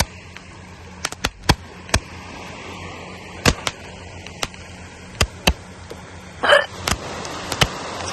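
Small fireworks going off: sharp, irregular pops and cracks, several close together, over a steady hiss.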